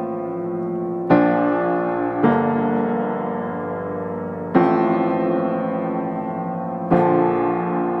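Background music: slow piano chords, four struck in turn, each left to ring and fade.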